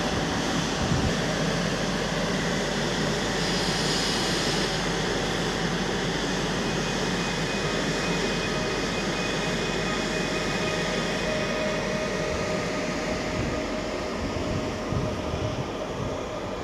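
A Koleje Śląskie 27WE electric multiple unit pulling away from the platform: steady rail rumble with a faint steady electric whine from its drive, easing slightly as the train draws off into the distance.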